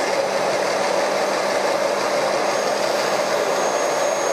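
Merax FE-50 magnetic-base drill's motor running steadily in reverse, backing an M16 tap out of a freshly tapped hole at the end of its automatic tapping cycle.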